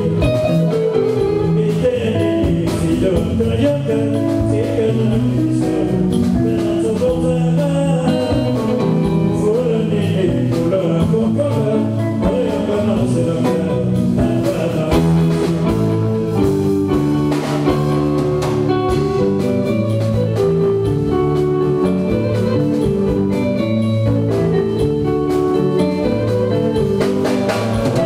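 Live band music: electric guitars, bass guitar and drum kit playing a steady groove, with a man singing over it.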